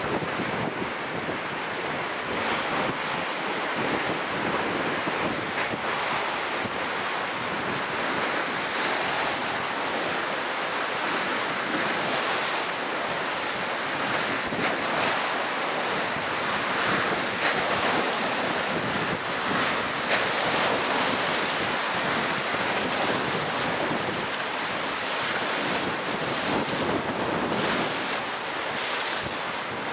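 Steady rushing noise of wind and water.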